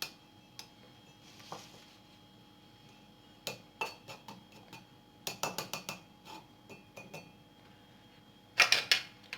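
Kitchen utensils and dishes clinking and knocking in scattered light strikes, bunched in quick clusters, with the loudest run near the end, as grated red onion is pressed through a strainer for its juice.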